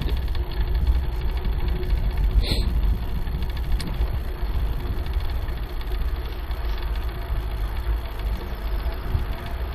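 Steady low wind rumble on a bike-mounted camera's microphone, mixed with bicycle tyres rolling over brick pavers, with one brief sharper sound about two and a half seconds in.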